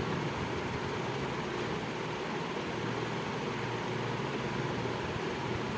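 Mutton curry gravy boiling in an open aluminium pressure cooker, bubbling with a steady hiss.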